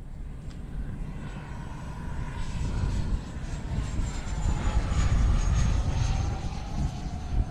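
Freewing F-22 Raptor 90mm electric ducted-fan RC jet flying past overhead: a fan whine that grows louder toward a peak a little past the middle and drops in pitch as it goes by, over a low rumble.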